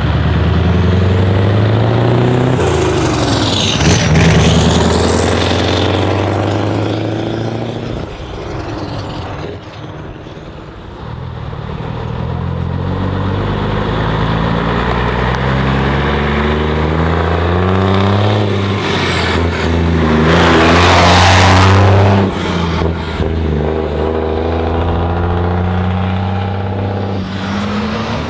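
Heavy trucks pulling away one after another, their diesel engines revving up and dropping back through a string of gear changes. The later truck is a classic Scania 111 with its 11-litre straight-six. About three-quarters of the way through, a loud rushing hiss rises over the engine and stops abruptly.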